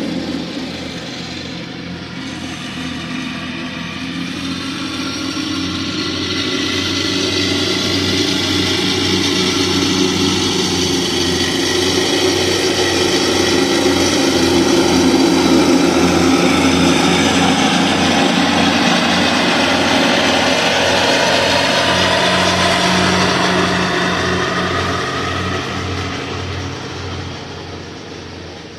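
Lawn mower engine running steadily under load while mowing, growing louder toward the middle and fading again near the end as the mower passes close by and moves away.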